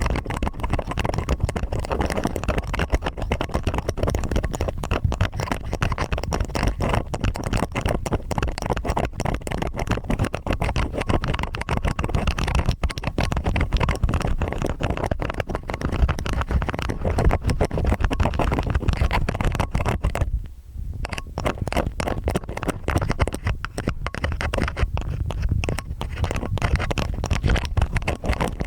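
Stainless steel ear picks scraping and scratching in both ears at once for ear-cleaning ASMR: a dense, unbroken run of rapid scratches and rubbing with a deep rumble underneath. It drops away briefly about twenty seconds in, then carries on.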